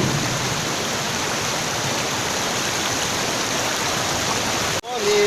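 Steady rush of falling water from a waterfall. It drops out abruptly near the end, and a voice starts singing just after.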